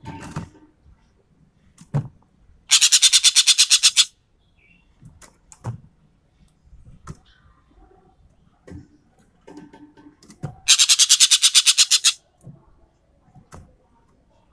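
Ekek keling (a green magpie) giving its rapid rattling 'tembakan' call twice, each a fast machine-gun-like train of about ten harsh notes a second lasting roughly a second and a half, with faint clicks and shorter notes in between.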